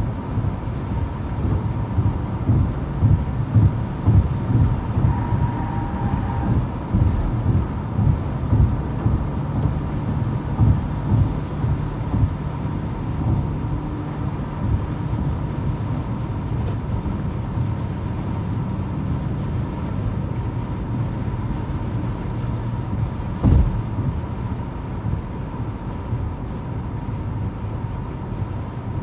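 Road and tyre noise inside a car cruising at highway speed: a steady low rumble with small irregular bumps and a faint steady high tone. There is a single louder thump about two-thirds of the way through.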